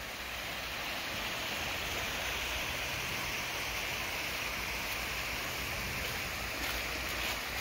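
Small forest creek running over rocks: a steady rush of water.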